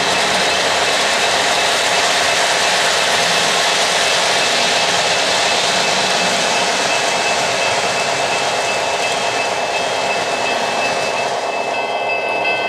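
O-gauge model trains running on three-rail track, a steady rolling whir of wheels and motors. Near the end a few steady high tones join in.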